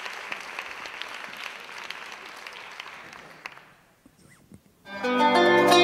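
Audience applauding, fading out about four seconds in. After a short lull, louder music starts near the end.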